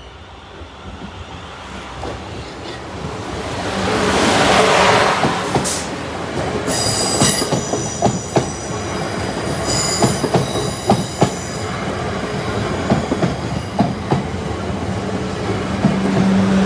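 Class 444 electric multiple unit passing at speed. A rushing noise builds over the first four seconds as it arrives, then comes a run of sharp clacks from its wheels over the rail joints of the crossing, with a high whine over the top from about six seconds in.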